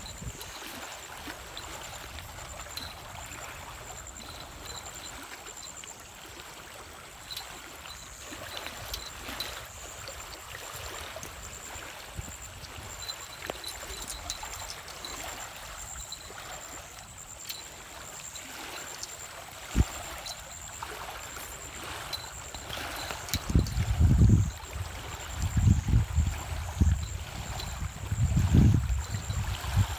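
Water splashing and lapping at a pebbly shoreline as a hooked fish thrashes at the surface close in. Several loud low rumbles of wind on the microphone come in near the end.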